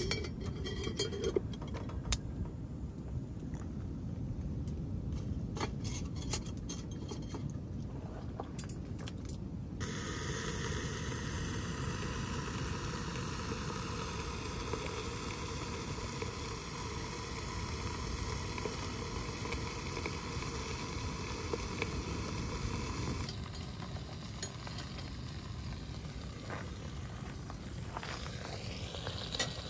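Metal clinks and clanks as a cast iron pot is handled with a wire lid lifter and set on a wire grill grate over a small wood-burning stove, over a steady low rumble. After about ten seconds the clinks give way to a steady hiss from the fire burning under the pot.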